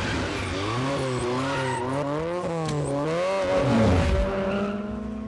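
Car engine racing with its pitch wavering up and down, mixed with tyres skidding as the car swerves. The sound swells to its loudest about four seconds in, with a falling pitch as it passes.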